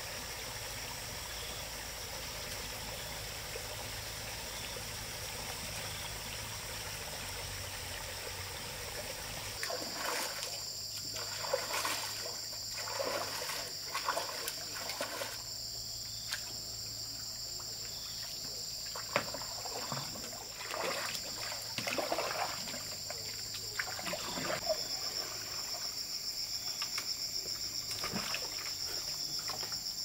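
Water trickling steadily. About ten seconds in this gives way to irregular splashes and sloshing as a bamboo raft is paddled across a pond, under a steady high insect chorus that begins to pulse near the end.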